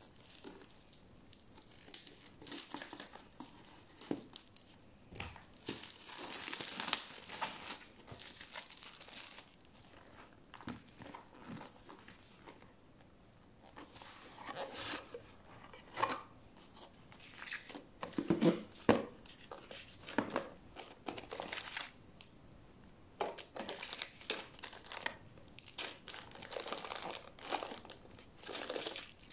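Cardboard and plastic packaging being handled during unboxing: scissors cutting the box tape near the start, then the product box being opened and plastic wrapping around the cables crinkling, in irregular rustling bursts.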